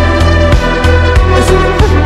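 Music with a steady beat under sustained pitched tones.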